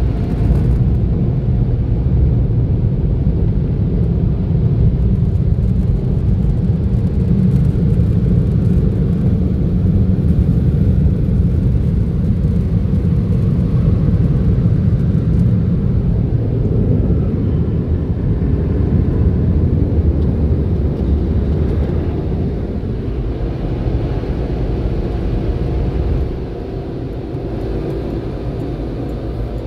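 Sonny's car wash tunnel dryer blowers running, a loud steady rumbling rush heard from inside the car. It changes about halfway through and drops off suddenly near the end as the car clears the dryers.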